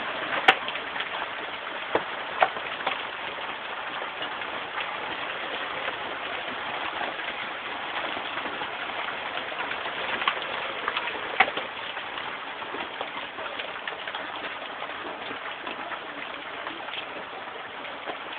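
Heavy rain and hail pouring down in a steady hiss, with a few sharp knocks of hailstones striking hard surfaces. The loudest knock comes about half a second in, and there are others around two seconds and eleven seconds in.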